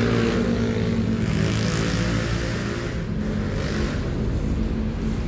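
Steady road traffic: engines of passing cars and motorcycles running, with a low hum and tyre hiss that swells as vehicles go by about two seconds in and again near four seconds.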